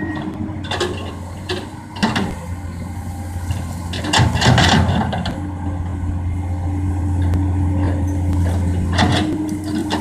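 Komatsu PC200 excavator's diesel engine running steadily, with a series of knocks and clatter over it from the working machine, loudest about four to five seconds in.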